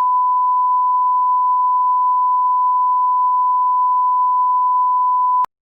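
Electronic beep tone: a single steady pure pitch around 1 kHz. It holds evenly and cuts off abruptly with a click about five and a half seconds in.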